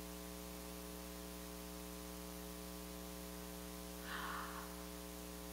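Steady electrical mains hum in the recording: a low buzz with a row of evenly spaced overtones. A brief soft noise comes about four seconds in.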